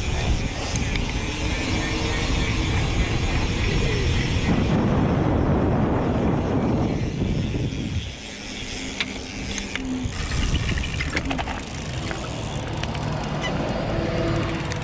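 Mountain bikes riding fast down a dirt trail: wind buffeting the microphone and tyres rumbling over the ground, loudest in the middle and easing about eight seconds in. Sharp clicks and rattles from the bike follow over rough ground.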